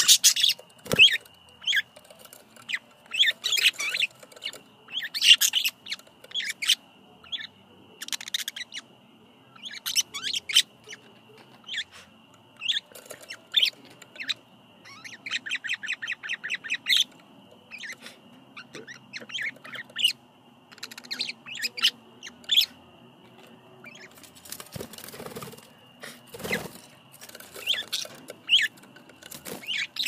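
Budgerigars chirping and chattering, a string of short sharp squawks and chirps with a quick rattling run of repeated notes about halfway through.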